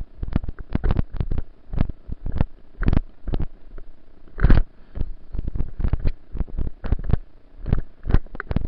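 A rapid, irregular series of knocks and thumps, several a second, heaviest in the low end.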